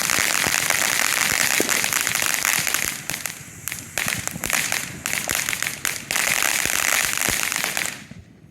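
Fireworks crackling: a dense, loud run of rapid pops and snaps that thins briefly about three seconds in, picks up again, and dies away near the end.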